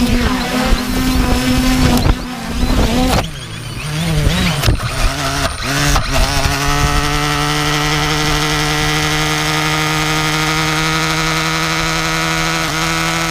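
Drone's electric motors whining. The pitch wavers and several knocks come around the middle, then the motors settle into a steady, unchanging whine. They keep spinning after the fall and will not shut down, needing a manual kill.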